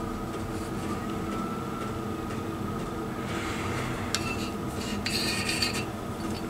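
A dial bore gauge is shifted inside a Triumph Bonneville T140 cylinder bore: a click about four seconds in, then a brief metallic scrape of the gauge against the bore wall a second later, over a steady low workshop hum.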